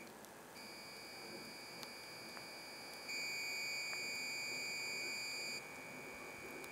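A steady, high-pitched tone, like a long beep, that stops briefly just after the start, resumes, and grows louder for a couple of seconds in the middle before dropping back.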